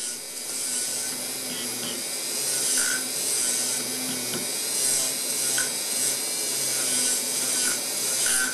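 Dental milling machine's handpiece spinning a finishing cutter at about 8000 rpm against the metal walls of a cast crown attachment: a steady whir with a scraping hiss as the walls are milled smooth.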